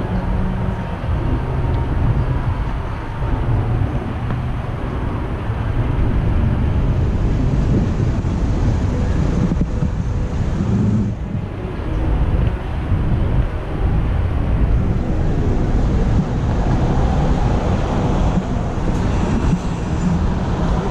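Steady road and traffic noise of a car driving through city traffic, heard through a car-mounted camera's microphone. A heavy, uneven low wind noise on the microphone sits under it.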